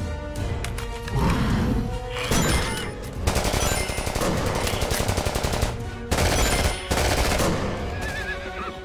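Rapid gunfire, many shots in quick succession for about three seconds in the middle, over film-score music.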